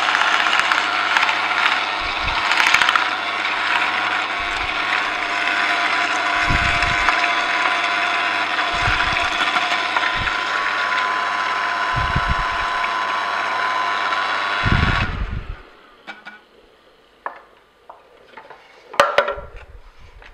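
An Angel twin-gear juicer and a Hurom vertical slow juicer running together, crushing carrots, a steady machine hum with a few low knocks as carrots are pushed in. The machines stop suddenly about 15 seconds in, followed by scattered light clicks and knocks of plastic juice and pulp containers being handled.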